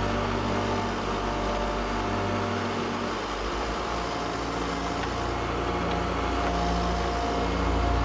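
The diesel engine of a John Deere backhoe runs with a steady low drone as its arm digs into wet mud.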